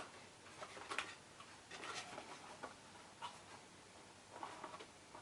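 Faint taps and light rustles of card being handled and pressed down while gluing, a small click or scrape about every second.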